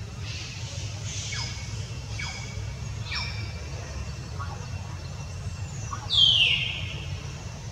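High-pitched falling squeals from infant macaques: three short ones in the first few seconds, then a louder, longer one about six seconds in, over a steady low rumble.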